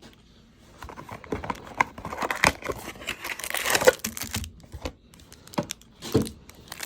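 Wrapper of a pack of baseball cards being torn open and crinkled by hand. It makes a run of irregular crackles that starts about a second in.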